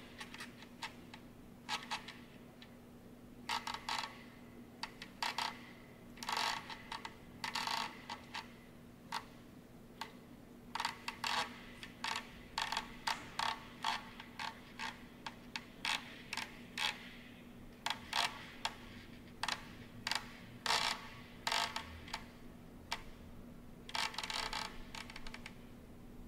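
Irregular short mechanical clicks and creaks, some coming in quick clusters with a brief ringing tone, over a steady low hum.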